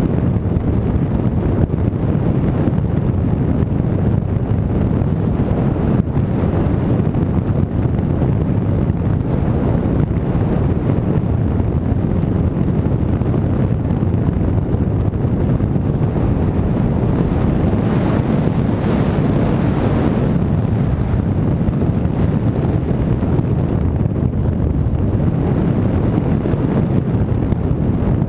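Loud, steady rush of wind buffeting the microphone, with a thin high whine held throughout.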